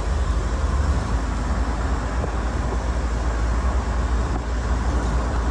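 Steady rumble of road, engine and wind noise heard from the open rear bench of a moving pickup-truck taxi (songthaew), with a heavy low rumble.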